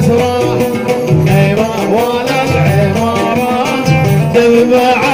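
Live Middle Eastern folk dance music: a wavering melody line over a steady low drum beat.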